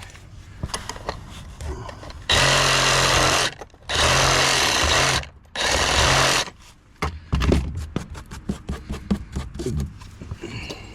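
A power saw cutting wood, run in three short bursts of about a second each, with clicks and knocks of handling between them.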